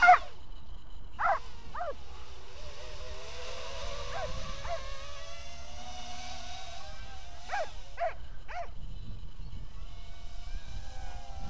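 Micro quadcopter's small brushless motors (1306 3100kv with cut-down Gemfan triblade props) whining in flight, the pitch climbing slowly through the middle, over a low wind rumble. A dog barks twice about a second in, then three times in quick succession near two-thirds of the way through.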